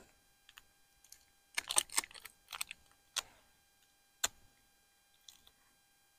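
Quiet clicks and crinkles of hands handling camp cooking gear and packaging: a quick cluster of crisp clicks and rustles about a second and a half in, then two single sharp clicks.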